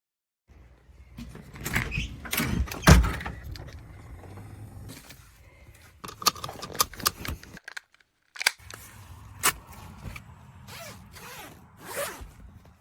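Rustling and clicking handling noises with a sharp thump about three seconds in. The sound cuts out completely twice, near the start and just past the middle.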